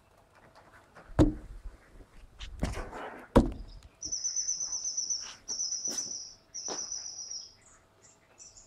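Two sharp knocks with some rustling between them, then three high, rapidly trilled chirps of about a second each.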